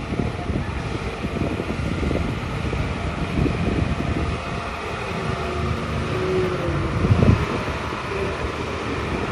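Diesel engine of a Hyundai dump truck running as the truck drives slowly over rough dirt, with a heavy thump a little after seven seconds in.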